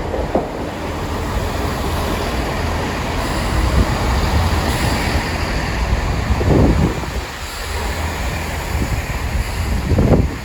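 Class 165 diesel multiple unit running into the station, a steady rumble of engine and wheels.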